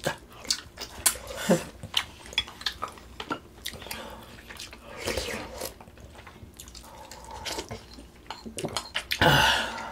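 Eating Korean pork-bone soup: spoons and chopsticks clicking against bowls, with wet slurping and chewing. A short vocal sound comes near the end.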